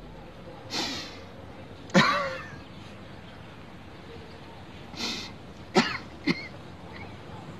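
A man coughing and clearing his throat in five short fits, some with a strained, pitched grunt, the second one loudest: sounds of a man in pain.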